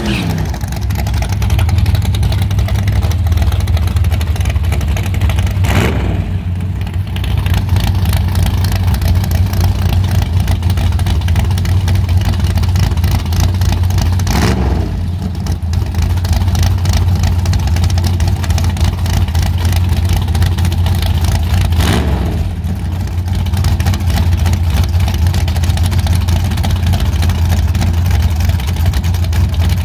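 A drag-racing Chevrolet Nova's engine idling heavily with a deep, steady rumble. Three short throttle blips come about eight seconds apart, each a quick rise and fall in pitch.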